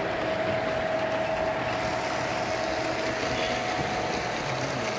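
O gauge model diesel locomotives running along the track: a steady rolling rumble with a constant high whine.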